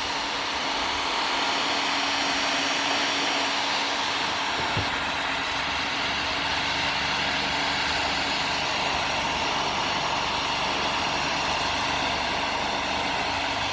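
Electric heat gun running steadily, blowing hot air to shrink heat shrink tubing: an even rushing blow with a faint steady hum underneath.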